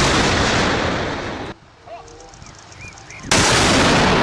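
Cannon-blast sound effects, like a tank firing: a blast dies away, then a second one starts suddenly a little over three seconds in and fades over about two seconds.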